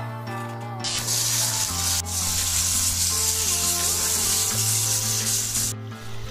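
Raw chicken pieces sizzling loudly in a hot pan over a wood fire while being stirred with a spatula; the sizzle starts about a second in and cuts off abruptly near the end. Background music plays underneath.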